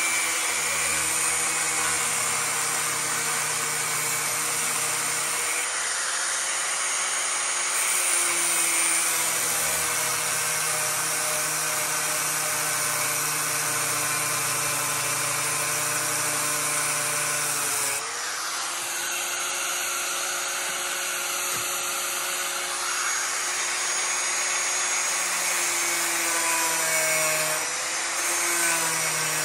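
Corded angle grinder running and cutting through the steel lock on a box truck's rear door. Its steady whine sags briefly under load about eighteen seconds in and again near the end.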